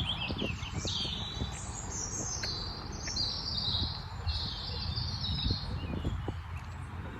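Wild songbirds chirping and warbling in quick phrases, one after another, over a low rumble.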